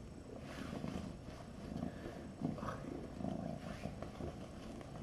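A kitten purring, the purr swelling and fading in a steady rhythm with its breaths.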